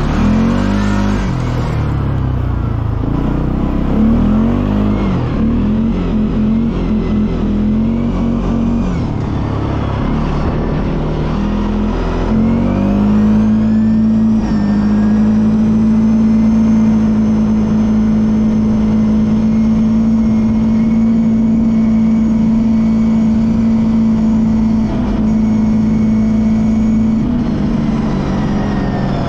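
CFMoto ATV engine under way in high range: revving up and easing off several times, then climbing to a steady high pitch held for about a dozen seconds before dropping off near the end.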